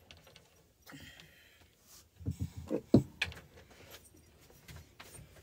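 A few soft knocks and clinks of a mug being handled, with faint taps about a second in and a cluster of sharper knocks about two to three seconds in.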